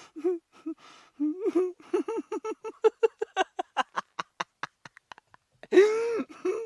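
A person laughing: a rapid run of short "ha" pulses, about five a second, that thin out and stop, then one loud drawn-out cry of laughter near the end.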